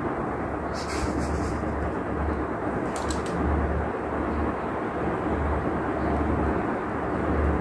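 White ceiling fan running at speed: a steady rush of air from the spinning blades over a low rumble that swells and fades about once a second. Two brief crackles come about one and three seconds in.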